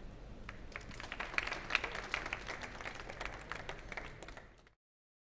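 Small seated audience applauding at the end of a talk: dense clapping that builds about a second in, then thins out and cuts off to silence near the end.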